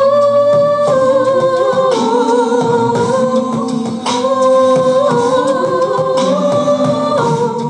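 A cappella group singing held chords with no words, the chords shifting every second or so, while a solo voice wavers above them.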